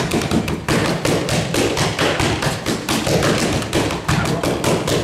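Punches landing on boxing focus mitts in a rapid, unbroken flurry of smacks, several a second.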